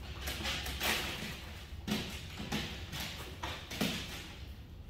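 A handful of short, irregular taps and scuffs as a Cane Corso puppy's paws and claws strike and scrabble on a padded training platform while it climbs up.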